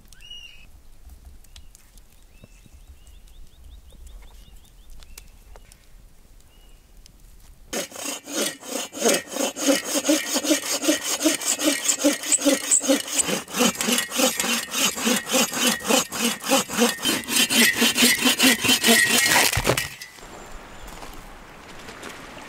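Hand saw cutting through a wooden log with quick, even back-and-forth strokes. It starts about a third of the way in and stops shortly before the end, leaving a steady outdoor wind-and-water hiss.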